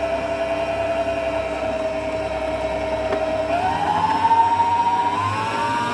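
Electric stand mixer running, creaming butter in its bowl. The motor's steady whine rises in pitch about three and a half seconds in, and again near the end, as it speeds up.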